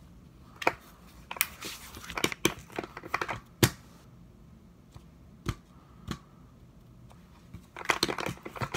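Hard plastic clicks and knocks, with some rustling, as a small sport-stacking timer is pushed and wiggled into the lock-in slot of a stack mat, which is not going in easily. The clicks come singly and in short runs, the loudest about three and a half seconds in, with a quick run of them near the end.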